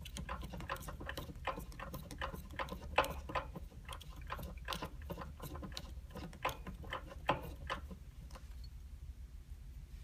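Bicycle pedal being threaded onto a crank arm: irregular small clicks and taps of metal parts, several a second, fewer near the end, over a low steady hum.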